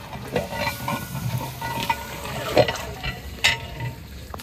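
A long metal ladle stirring and scraping around inside a large metal cooking pot (deg) of hot, steaming korma liquid, with irregular clinks and knocks against the pot's sides. The loudest knock comes about two and a half seconds in, and another about a second later.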